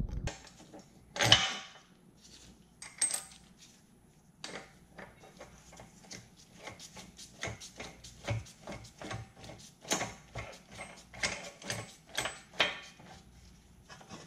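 Hand tools working a car's rear trailing arm bushing: irregular metallic clicks and clinks, with a few louder clanks, the loudest about a second in.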